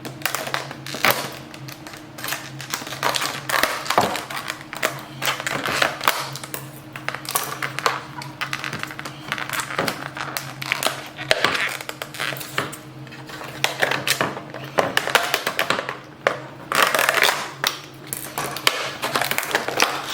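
Irregular clicking, tapping and clattering of hard parts being handled and fitted together, under a steady low hum.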